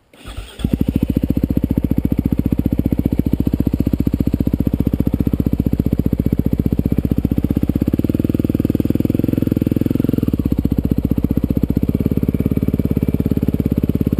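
Dirt bike engine catching about half a second in, then running steadily with a rapid even firing beat, a little louder for a couple of seconds about eight seconds in.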